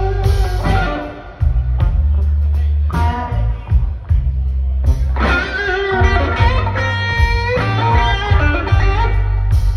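Live blues band playing amplified: an electric guitar carries the lead with notes that bend in pitch over steady bass and drums. The music drops back briefly about a second in.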